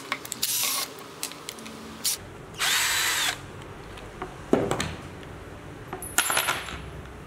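Cordless drill-driver running in three short bursts, its motor whine rising and falling, as it backs out the nuts holding an electric skateboard's rear truck. Sharp clicks and a knock of small metal parts between the bursts.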